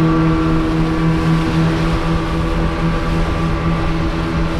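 Motorboat engine running steadily at speed, a constant drone, with water rushing and spraying past the hull.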